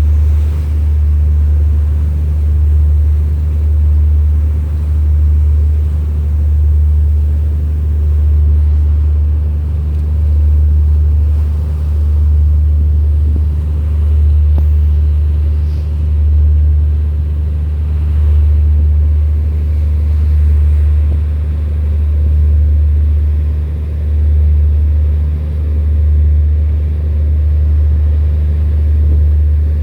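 Loud, steady low engine rumble from a vessel, its level swelling and fading about every two seconds.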